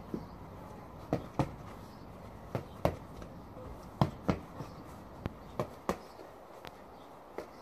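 Boxing gloves smacking focus pads: about a dozen sharp slaps, mostly in quick one-two pairs.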